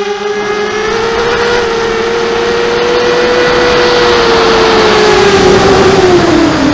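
Mini-hexacopter's electric motors and propellers whining, heard from the onboard camera with rushing wind noise that grows louder as it dives. The motor pitch holds steady, then drops near the end.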